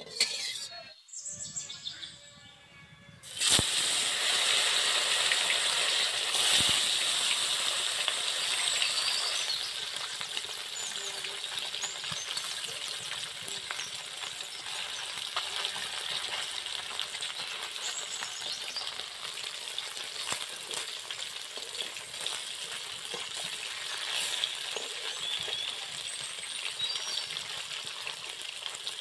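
Bata fish sizzling as they fry in hot oil in an aluminium kadai, with a metal spatula now and then scraping and turning them. The sizzle starts suddenly a few seconds in, is loudest just after, then settles into a steady hiss.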